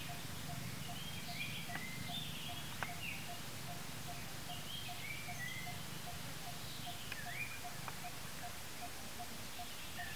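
Forest ambience with birds calling in short chirps and sliding whistles, over an evenly repeated short note about two or three times a second and a steady low hum. A few sharp clicks stand out.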